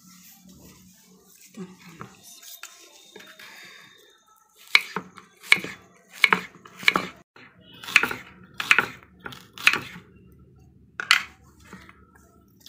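Kitchen knife slicing peeled raw (green) banana into rounds on a wooden chopping board. After a few seconds of softer handling there are about eight cuts, each ending in a sharp knock of the blade on the board, roughly one a second.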